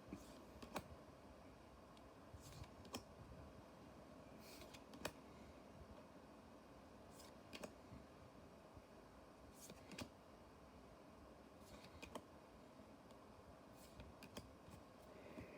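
Faint, scattered clicks and short rustles of trading cards being handled and flipped through one by one, over near silence.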